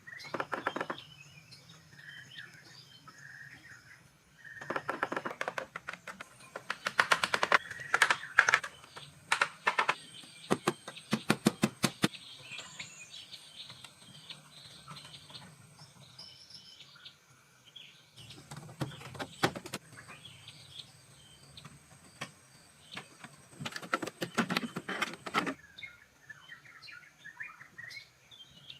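Small birds chirping in the background, with several bursts of rapid clicking and knocking from hand construction work, the loudest stretch about seven to twelve seconds in.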